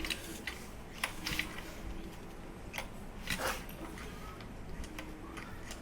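Scattered light clicks and short rattles from hands handling the brush cutter, with its engine not yet running.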